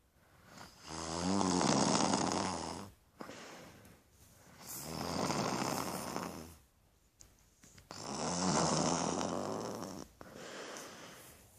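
A sleeper snoring: three long, loud snores about three and a half seconds apart, with quieter breaths between them.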